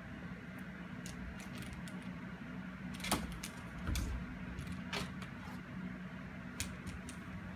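A cat toy hanging from a doorknob knocking and clicking against the door and knobs as cats swat at it, with a few sharp clicks and a dull thump about four seconds in, over a steady low hum.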